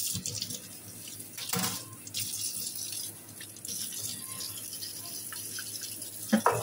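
Tap water running and splashing onto a metal sauce-dispenser tube in a stainless-steel sink while it is scrubbed with a brush, with a few short knocks, the loudest near the end.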